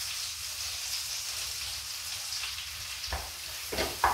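Sliced onion sizzling in butter in a frying pan, a steady hiss. In the last second a few sharp knocks and scrapes come from a utensil stirring in the pan.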